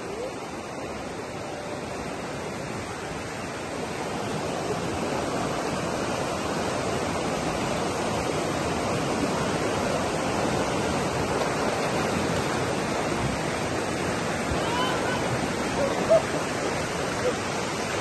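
Shallow jungle river rushing over rocks in whitewater rapids: a steady rush of water that grows a little louder a few seconds in.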